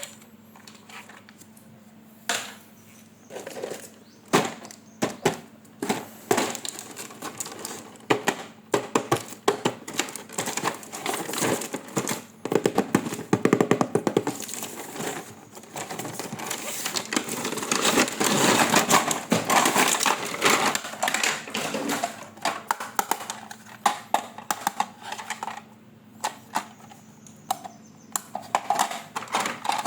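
Hands handling plastic toy parts and packaging: irregular clicks, knocks and crackling rustles. They start a couple of seconds in and grow busier in the middle.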